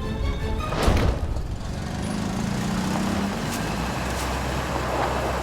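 Motor vehicle engine running with a steady low rumble, and a sharp thump about a second in.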